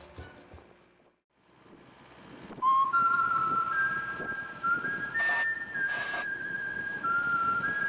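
A person whistling a slow tune, with held notes stepping up and down in pitch, starting about two and a half seconds in. Before it, steel-drum music fades out in the first second.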